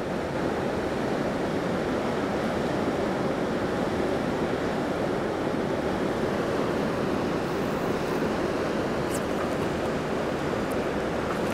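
Steady rush of a fast-flowing river, an even wash of moving water.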